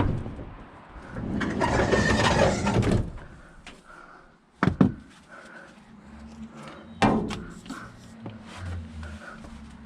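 Van doors being worked: a knock, then a rolling scrape of about two seconds like a sliding side door running on its track, followed by two sharp bangs about five and seven seconds in, as doors are slammed shut.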